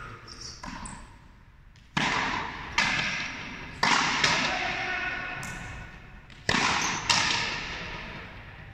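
Frontenis rally: a hollow rubber ball struck by rackets and smacking off the frontón's front wall, about six sharp hits, mostly in pairs under a second apart. Each hit rings on in the long echo of the large court.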